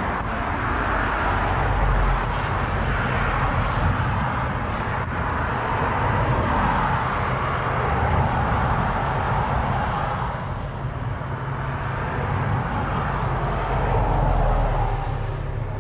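Steady motor vehicle noise, a low rumble with a rushing hiss that swells and eases every few seconds, with a few faint clicks over it.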